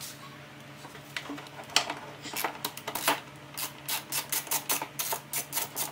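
Hand ratchet clicking as a small 10 mm retaining bolt is backed out; the clicks are scattered at first, then come quickly and fairly evenly, about four or five a second, from about halfway in.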